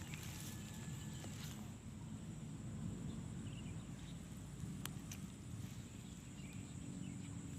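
Outdoor ambience: a low rumble under a steady high-pitched whine, with a few faint chirps and one sharp click about five seconds in.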